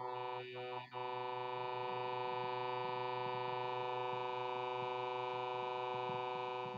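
Steady electronic buzz on the sound feed: a low hum with many overtones, unchanging in pitch and level once it settles about a second in. It is typical of an audio fault on a remote presenter's line being fed into the room's sound system.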